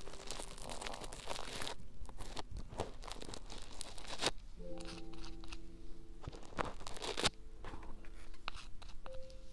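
Fingers squeezing and pulling soft, sticky slime-like material pressed onto a binaural microphone's ear, heard right at the mic as many small crackles, clicks and sticky tearing sounds.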